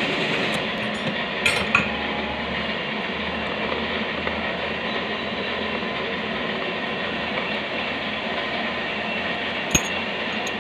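Metal parts and tools clinking a few sharp times, two close together about a second and a half in and one near the end, over a steady background hiss.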